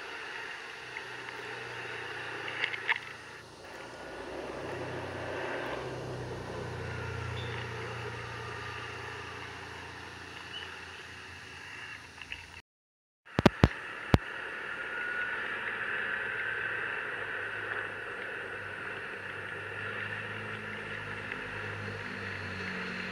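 Motor scooter ridden along a wet road: the engine runs with a steady hum under road and wind noise. A few sharp knocks stand out about three seconds in and again just after the sound cuts out for a moment around the middle.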